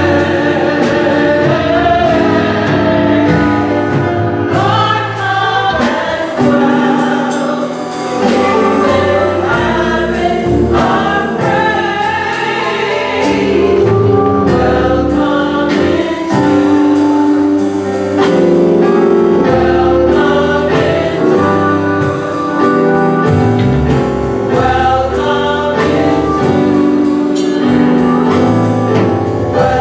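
Gospel choir singing in sustained, shifting harmonies over a steady beat.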